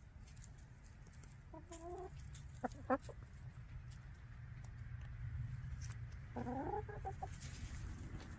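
Backyard hens clucking: a short call about a second and a half in, two quick sharp notes around three seconds, and another run of clucks near the seven-second mark.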